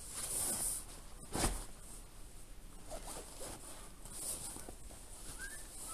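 A padded nylon foil bag being handled and zipped: scratchy zip rasps, with one dull thump about a second and a half in. A bird chirps briefly near the end.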